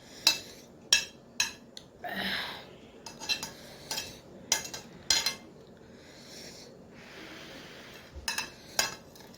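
Cutlery clinking and scraping against a plate while someone eats chow mein: about nine sharp, irregular clinks, with a softer rustling scrape about two seconds in.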